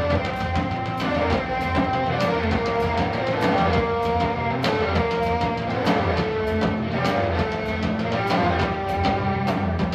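Live band music: electric guitar, drum kit and keyboard playing together, with sustained notes over a steady cymbal beat.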